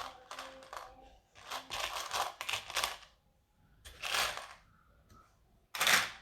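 Loose plastic LEGO Technic pieces clattering and clicking as they are rummaged through and handled. The clicks come in several irregular bursts, with the loudest burst near the end.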